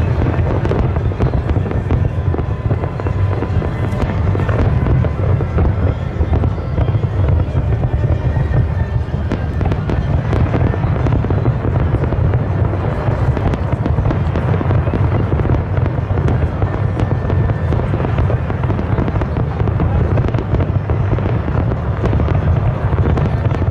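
Aerial fireworks going off in a dense, continuous barrage: deep booms overlapping with rapid crackling bursts, with no let-up.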